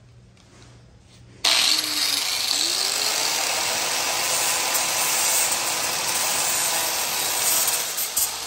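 Angle grinder grinding down fresh welds on a steel axle: a harsh, steady grinding hiss with a thin motor whine that starts suddenly about a second and a half in and dies away near the end.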